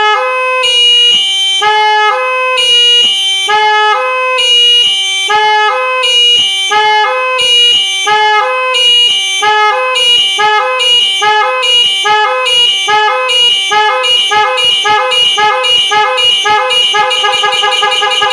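Telolet horns, a set of tuned electric horns, sounded one after another by a 4-channel sequencer module, playing a repeating stepped tune. The steps get steadily faster until the notes nearly blur together, as the module's adjustable sequence speed is turned up.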